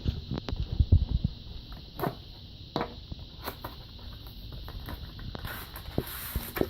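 Scattered knocks, taps and rustling from packaging and parts being handled during an unboxing, with a cluster of low thumps about a second in.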